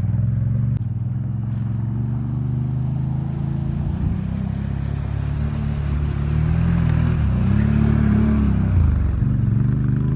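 Quad ATV engine running under load as it drives through shallow water, the engine note rising and falling with the throttle, with water spray swelling in the middle and second half.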